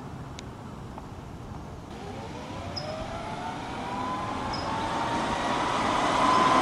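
Electric drivetrain of a 1967 MGB-GT converted to a 3-phase AC motor, accelerating in second gear. From about two seconds in, a whine rises in pitch and grows steadily louder as the car draws nearer.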